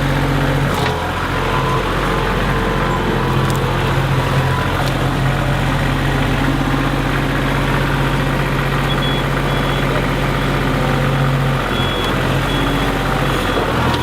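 Vehicle engine running at a steady speed, its pitch shifting about a second in and again near the end, while the vehicle is being driven back and forth to get unstuck. A few faint short high beeps sound in the second half.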